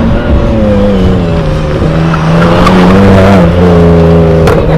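A car engine being driven hard on an autocross course. The pitch climbs under throttle for about a second, then drops sharply a little past the middle, and a single sharp pop comes near the end.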